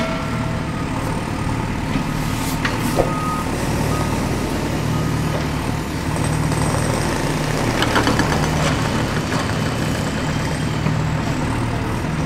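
Steady diesel engine sound of a heavy excavator running, with a few short high beeps about three to five seconds in.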